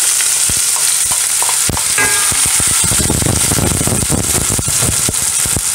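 Chopped onions sizzling in hot groundnut oil in a stainless steel frying pan: a steady high hiss with many small pops. The crackling grows denser and fuller about three seconds in.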